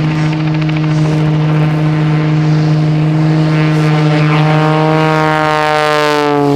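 Wolf Pitts Pro aerobatic plane's Lycoming 540 engine and propeller running at high power, a loud steady drone whose pitch falls over the last couple of seconds as the plane passes by.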